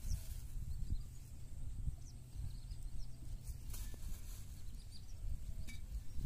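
Low steady outdoor rumble with faint rustles and a few light clicks as plastic bags and terracotta clay pots are handled on dry grass.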